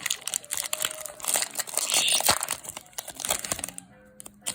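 Crinkly foil wrapper of a Pokémon booster pack crackling as it is handled and torn open, with dense irregular crackles that die away shortly before the end.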